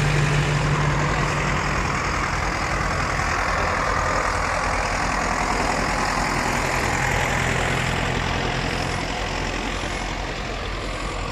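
Farm tractors' diesel engines running as they drive slowly past at close range, one towing a loaded trailer: a steady low engine hum that eases slightly near the end.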